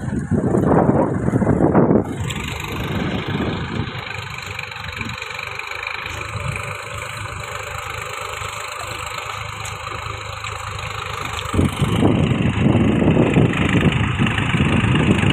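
Tractor engine running steadily under load while it drives a rotavator through a flooded paddy field. The sound changes abruptly about two seconds in and again near the end, where it becomes louder and rougher.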